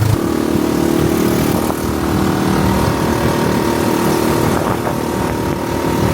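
A small vehicle being driven: a steady motor hum over road and wind noise.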